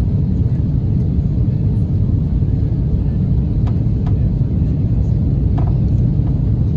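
Airliner cabin noise heard from a passenger seat: a steady, loud, low rumble of the engines and rushing air.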